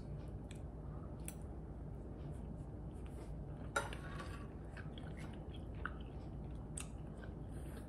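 A man chewing a mouthful of ribeye steak with his mouth closed: soft, faint, wet chewing clicks. There is a short, slightly louder sound just before four seconds in, as knife and fork work on the plate.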